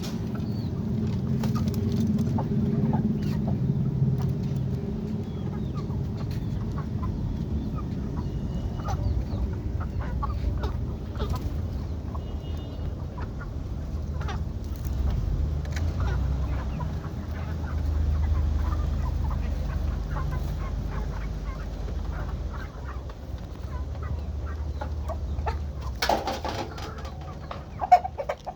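Aseel chickens clucking off and on over a steady low rumble, with a louder burst of sound near the end.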